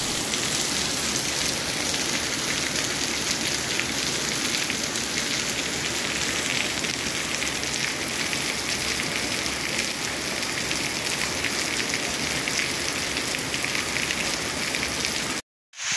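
Heavy rain pouring steadily onto a wet street and its puddles: an even hiss of dense, pattering drops. It breaks off for a split second near the end.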